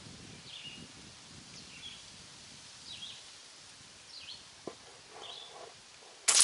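Birds chirping in short calls about once a second, then near the end a single sharp crack of a QB air rifle firing a pellet.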